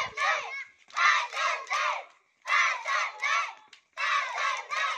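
Children's voices chanting or cheering in short rhythmic phrases, repeated about every second and a half.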